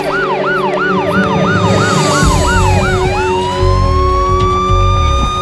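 Police siren in a fast yelp, about three rises a second, switching about two and a half seconds in to a slow wail that climbs steadily.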